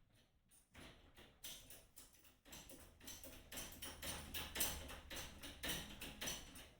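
Truck bed crane's hydraulic jack being worked with its jack handle: faint, quick metallic clicking and creaking that gets busier a couple of seconds in.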